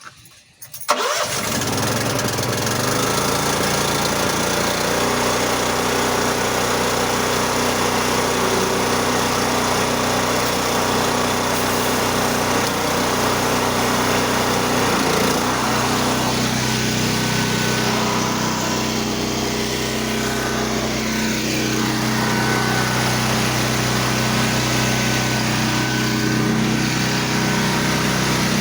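A pressure washer's petrol engine starts about a second in and then runs steadily.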